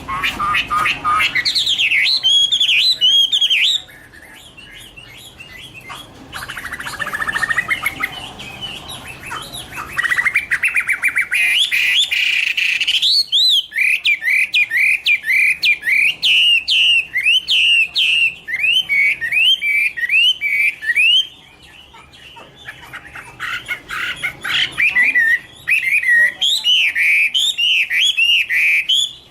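Chinese hwamei (Garrulax canorus) singing: loud phrases of fast, repeated rising whistled notes, broken by two quieter spells.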